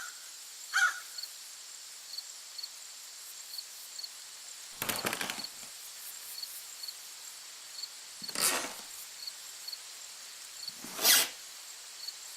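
A short squeak about a second in, then three harsh scraping, wood-like rubbing sounds a few seconds apart, the last the loudest, over a faint high ticking about twice a second.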